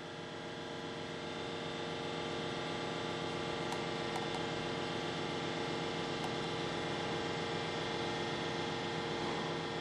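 Steady hum of a CNC stone-engraving machining centre running: several held tones over a hiss.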